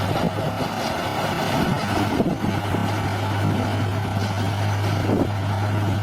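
Diesel engine of heavy earthmoving machinery running, with an uneven low rumble.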